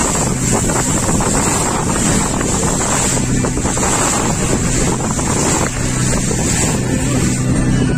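Speedboat engine running steadily at speed, with heavy wind buffeting the microphone.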